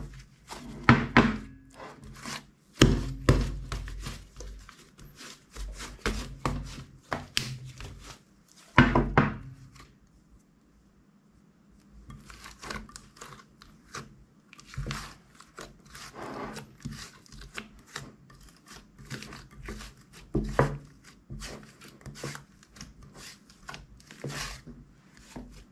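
Red slime being squeezed and kneaded by hand in a clear container: sticky squishing with many sharp clicks and pops, and heavier thuds against the container during the first ten seconds. About ten seconds in the sound stops for a couple of seconds, then comes back as lighter, quieter popping and squishing.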